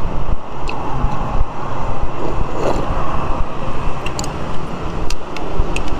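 Steady street traffic noise, with a few short, sharp clinks.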